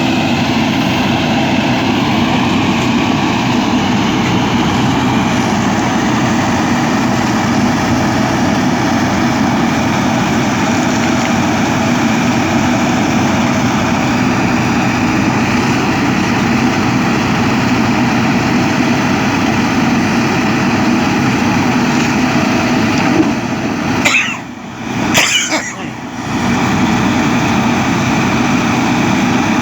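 JCB backhoe loader's diesel engine running steadily under digging work. The sound dips briefly about three-quarters of the way through, with a couple of short knocks.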